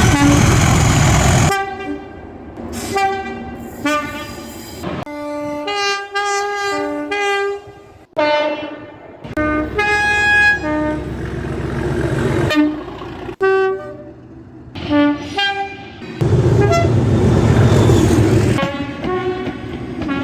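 A run of British Rail Class 37 diesel locomotive horn soundings, edited one after another: short two-tone blasts alternating between a low and a high note. Near the start, in the middle and near the end the noise of a passing locomotive lies under or between the blasts.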